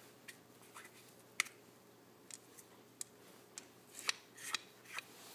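Round wooden treat puzzle being handled: light wooden clicks, taps and scrapes as its sliding discs are pushed along their slots and treats are put into the wells, about a dozen irregular taps with a small cluster near the end.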